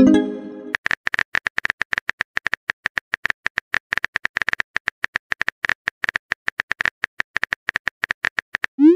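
Rapid keyboard tap clicks from a simulated phone texting app as a message is typed, several taps a second. It opens with a short message-received chime, and a quick rising swoosh of the send sound comes near the end.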